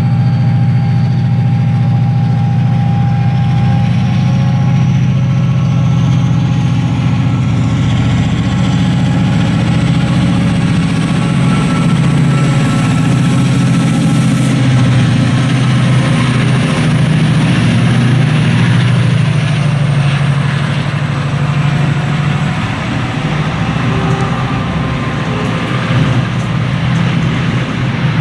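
Diesel train engine running steadily at idle, a continuous low rumble that eases slightly in the last few seconds.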